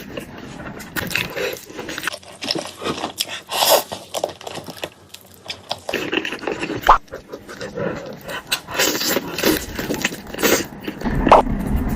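Close-up eating sounds: chewing, slurping and lip-smacking, with many irregular small clicks and crunches.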